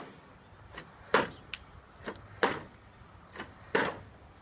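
Jump squats in sneakers on a wooden deck: three landings about a second and a third apart, with smaller ticks between them.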